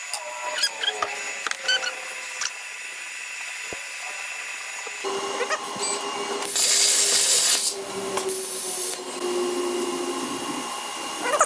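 Stepper motors of a Langmuir CrossFire Pro CNC plasma table driving the gantry and torch in short whining moves, with clicks. About five seconds in a steady hum starts, and a little later there is about a second of loud hissing air.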